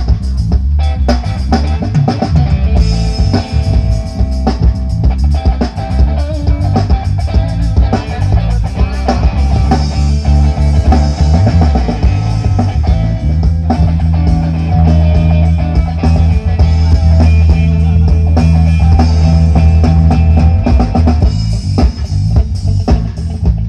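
Loud rock-style music with guitar and drums, played through a sound system during a sound check of its low end. The bass is very heavy and sustained, strongest about halfway through.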